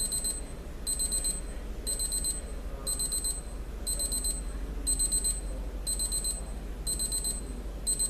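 Equity 65902 travel alarm clock's beep alarm going off: short clusters of rapid, high-pitched electronic beeps, repeating about once a second.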